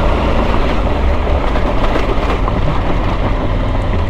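Triumph Tiger 900 Rally Pro's three-cylinder engine pulling steadily up a steep, rocky climb in second gear, the rider slipping the clutch, with rattling from the bike going over loose stones.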